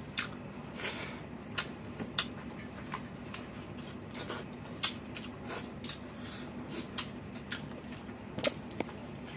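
Eating by hand: fingers scraping and scooping rice off a ceramic plate, with chewing. It comes as irregular small clicks and smacks.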